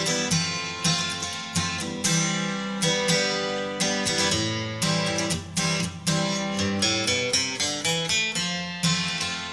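Background music: a plucked-string tune, each note starting sharply, then ringing and fading, in a steady rhythm.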